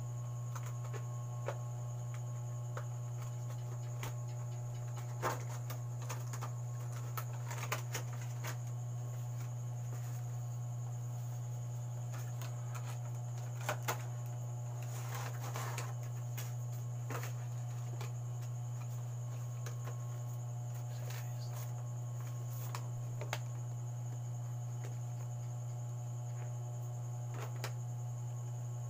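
Steady low electrical hum, with scattered small clicks, taps and rustles of objects being handled on a table.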